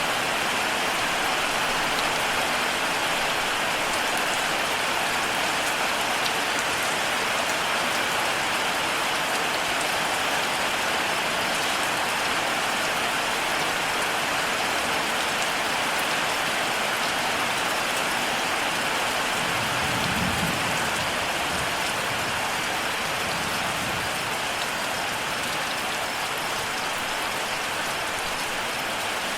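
Steady rain falling, an even hiss of raindrops on surfaces, with a brief low rumble about twenty seconds in.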